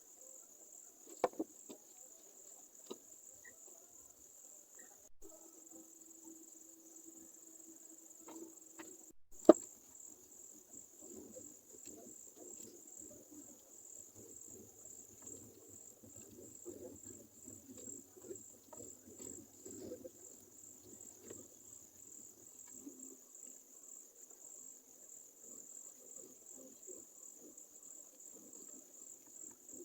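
High-pitched insect chirping that pulses steadily throughout, with a few sharp clicks, the loudest about nine and a half seconds in.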